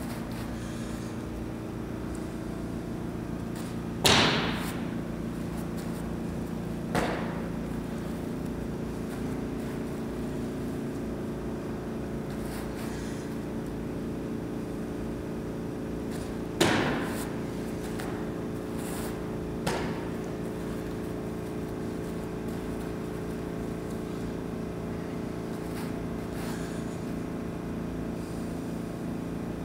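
A football long-snapped and caught: two sharp smacks of the ball into the holder's hands about twelve seconds apart, each followed about three seconds later by a fainter thud, over a steady low hum.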